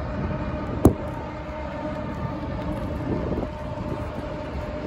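Freight train led by CSX diesel locomotives running steadily across a railroad bridge, with a faint steady hum over the low noise. A single sharp click about a second in.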